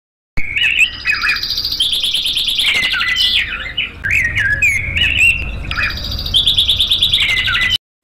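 Male common chaffinch singing: two song phrases, each made of quick runs of rapidly repeated notes with darting pitch sweeps.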